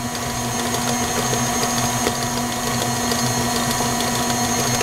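Tilt-head stand mixer running at a steady speed, its motor giving an even hum as the beater works thick cookie dough while flour is added.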